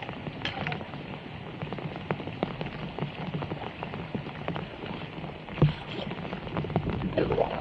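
Steady heavy rain falling on a flooded road, with short splashes and sloshing as handfuls of wet leaves are pulled out of a clogged curbside drain; one sharper splash stands out a little over halfway through.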